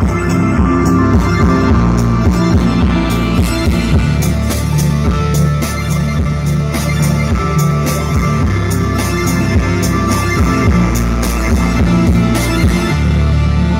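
Rock music with guitar, drums and heavy bass, played loud through a Sony SS-XB88V super woofer speaker as a bass test.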